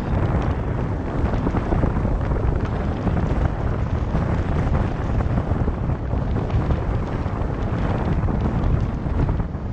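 Wind buffeting the microphone of a car-mounted camera, mixed with the car's road noise as it drives along a street. It is a steady, loud, low rumble.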